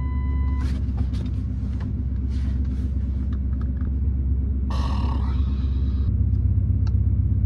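Pickup truck engine idling steadily, heard from inside the cab. A steady beep stops just after the start, and about five seconds in comes a long breathy exhale lasting over a second.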